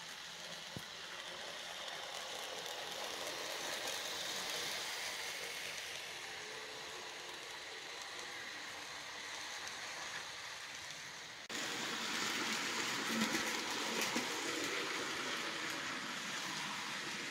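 Model passenger train running on layout track: a steady whir of the model Alco PA diesel's motor and wheels rolling on the rails, swelling and easing as it passes. About eleven and a half seconds in it turns abruptly louder, with light clicking.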